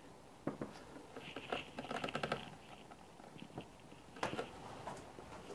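Faint scattered clicks and taps from the lathe's kitchen-worktop base being gripped and twisted by hand, with a quick run of small clicks about two seconds in.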